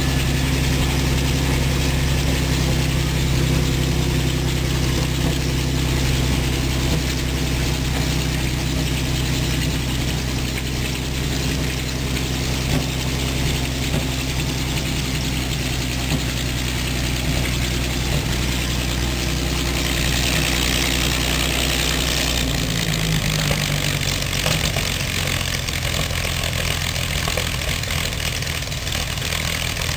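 A Panther tank's freshly rebuilt Maybach V12 petrol engine running steadily as the tank drives. About two-thirds of the way in the engine note drops and changes, just after a few seconds of higher rushing noise.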